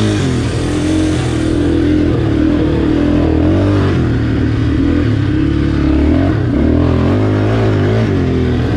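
Yamaha Warrior 350 quad's single-cylinder four-stroke engine being ridden hard on a dirt trail, its pitch climbing and dropping again and again with the throttle.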